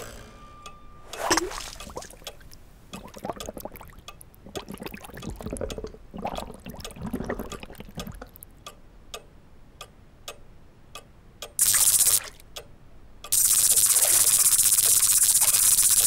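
Small cartoon sound effects of a tiny insect moving about inside a china teacup: sparse light clicks and soft wet drip-like sounds. Near the end a short burst of hiss is followed by a steady loud whirring hiss with a fast flutter.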